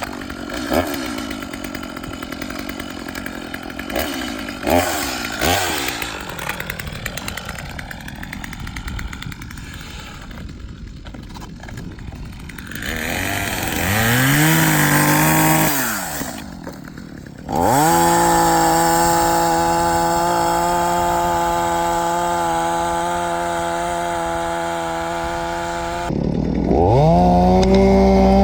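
Two-stroke chainsaw engine revving. Its pitch climbs about 13 seconds in, drops, jumps back up to a steady high speed at about 17 seconds, and climbs again near the end.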